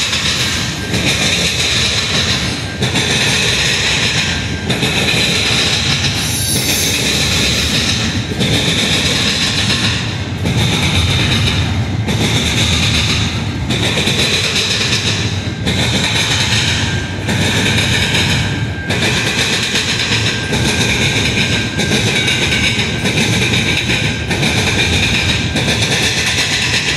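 Double-stack container freight cars rolling past at close range: a steady rumble of steel wheels on rail, with the clatter dipping briefly about every two seconds as each car goes by.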